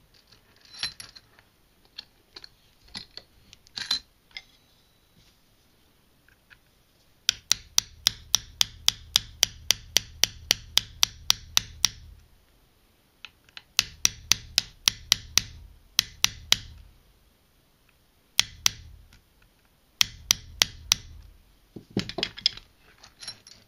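A small hammer tapping a roll pin punch in quick, light strokes, about five a second, in several runs, the longest of them some five seconds. The punch is driving the roll pin through an AR-15 gas block into the gas tube. A few scattered clicks of handling come before the first run.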